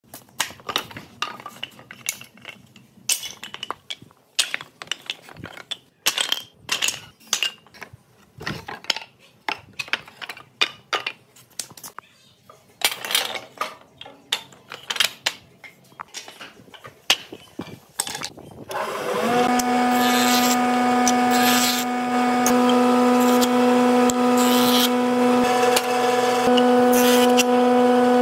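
Small wooden offcuts clattering and knocking as they are handled and stacked on a machine's steel table. About two-thirds of the way through, an electric jointer-planer starts, spinning up briefly and then running with a steady whine.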